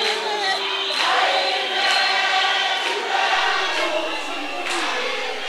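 A crowd of many voices singing together in celebration.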